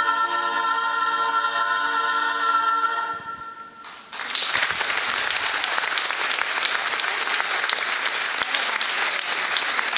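A girls' vocal ensemble holds a final sung chord that fades out about three seconds in; after a brief hush, the audience breaks into steady applause.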